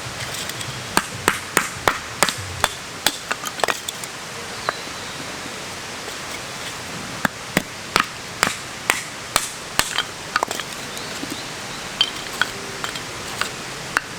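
Series of sharp knocks from a tool striking, in quick runs of several strokes with short pauses between, over a steady background hiss.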